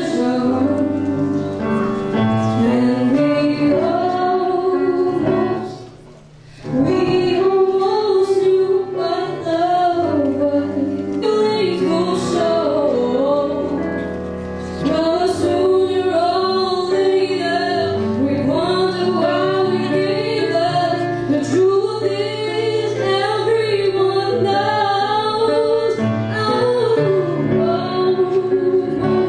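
A woman singing a song live with instrumental accompaniment, the melody wavering over sustained low notes, with a short break about six seconds in.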